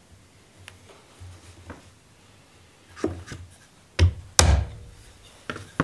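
Mortise chisel being struck and driven into fir to chop a mortise: a couple of faint taps, then sharp wooden knocks about three, four and five and a half seconds in, the hardest one, just past four seconds, ringing briefly.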